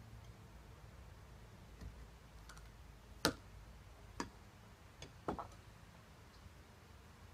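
Ramrod clicking against the barrel of a Feinwerkbau History No.1 muzzle-loading underhammer pistol as the load is rammed down. A handful of sharp clicks, the loudest about three seconds in, and three more within the next two seconds.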